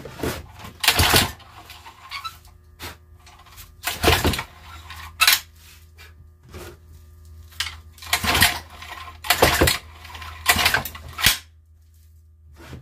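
Old lawnmower engine with no blade being pull-started: the recoil starter cord is yanked again and again, each pull a short rasping crank, without the engine catching. The owner blames the missing blade for the hard starting.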